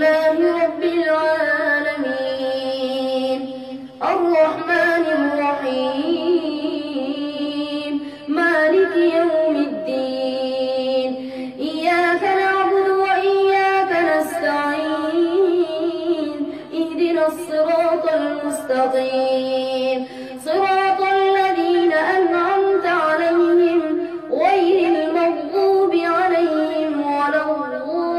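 A boy's voice chanting Quran recitation in the melodic tajweed style, in long, drawn-out, ornamented phrases with short pauses for breath between them.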